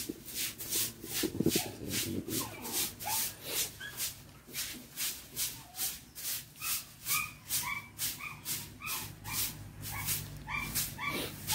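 A dog whimpering: short high-pitched whines, about two a second and more frequent in the second half, over a rhythmic hiss about three times a second.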